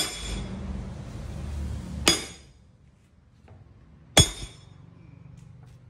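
Sledgehammer striking the top of a steel bar to drive a heavily rusted, seized cylinder liner out of a D24 engine block. Three sharp metallic blows about two seconds apart, each ringing briefly.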